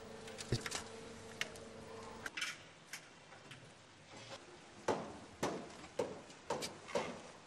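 Footsteps and knocks on metal scaffolding, with a run of sharp steps about two a second in the second half. A steady hum runs underneath for the first two seconds.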